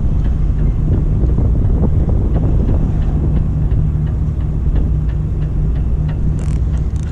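Fishing boat's engine running with a steady low hum, with wind buffeting the microphone.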